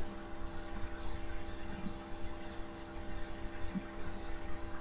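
Steady electrical hum, several even tones held level, over a faint low rumble of room noise.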